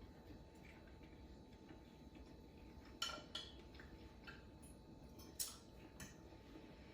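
Quiet eating sounds: a handful of short, faint clicks and clinks, about five of them, starting about three seconds in, over low room tone.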